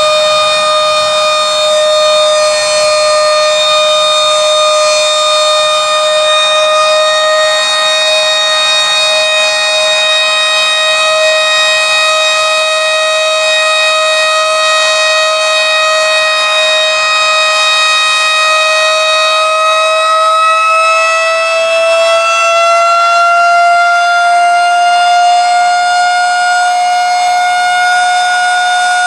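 Federal Signal 2001-130 outdoor warning siren sounding a steady alert tone, one held pitch with many overtones. The loudness stays even with no rotation sweep, and the pitch climbs a little about 20 seconds in, then holds.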